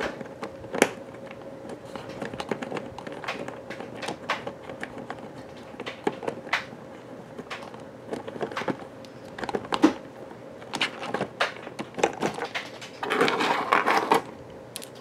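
Cardboard and paper parts being handled: irregular light clicks and taps as a card stand is slid onto the edge of a paper planetarium dome, with a brief rustle of a hand brushing over cardboard near the end.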